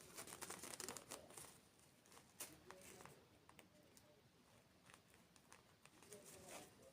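Faint close-miked eating sounds: soft crackles, clicks and wet mouth noises of chewing, coming in small clusters.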